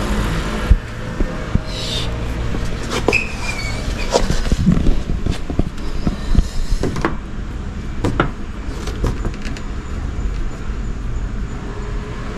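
Scattered light clicks and knocks from hands handling parts under a lifted car, over a steady low hum.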